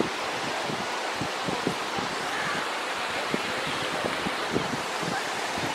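Steady beach ambience: the wash of surf on the shore mixed with wind rushing over the microphone.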